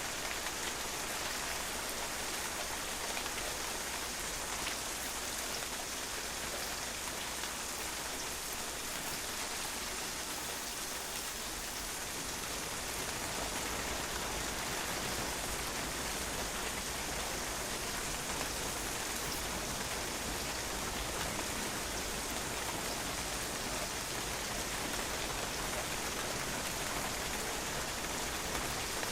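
Steady rain falling and drops splashing on a patio, an even continuous hiss of many small impacts.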